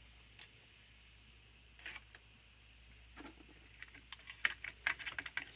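Light metallic clicks and taps of small carburetor parts being handled. A single click comes about half a second in and a few more around two seconds, then a quick, irregular run of clicks in the last second and a half.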